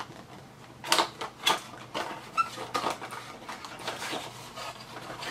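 Small cardboard box being opened by hand: a string of sharp scrapes, taps and rustles as the inner box is slid out of its striped paper sleeve, loudest about a second in.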